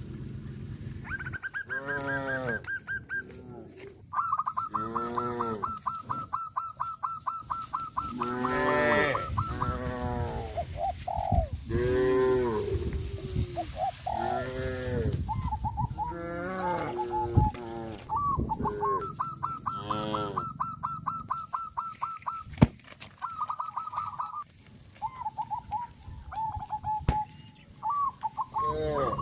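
Cattle mooing again and again, each call short and arching up and down in pitch. Between and over the calls runs a high, rapidly pulsing tone at one pitch, in several stretches of a few seconds.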